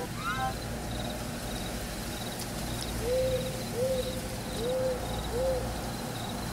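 FocusBand EEG app's audio feedback playing a night-time nature soundscape: crickets chirping in a steady pulse, with four short owl hoots in the second half. The app's music breaks off just as it begins.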